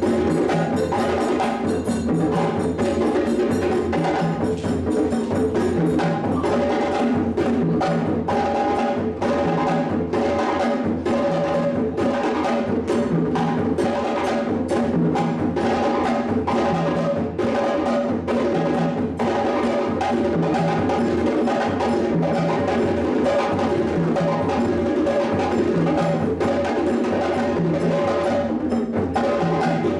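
West African Malinké drum ensemble of djembes and stick-played dunun drums playing a steady dance rhythm. A low drum note repeats evenly under dense hand-drum strokes.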